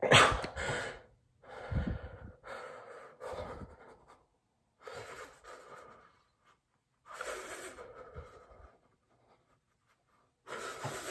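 A hard, sudden puff of breath at the very start, then a man's breathy, sobbing gasps in short bursts of half a second to a second, with pauses between them.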